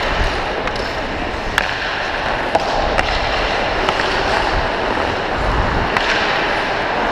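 Ice hockey skate blades scraping and carving on the ice, with several sharp clacks of sticks and puck scattered through.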